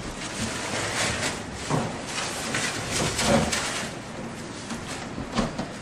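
Cooktop dust-collection bag rustling and crinkling as it is pulled off from under a freshly cut cooktop opening, an irregular run of rustles and scrapes.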